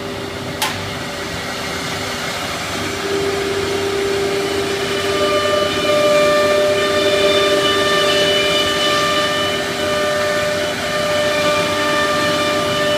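Philicam F2-9 CNC nesting router cutting a wood-grain panel: the spindle gives a steady high whine over the rush of its dust extraction. A single sharp click comes about half a second in, and a second, higher whine joins about five seconds in.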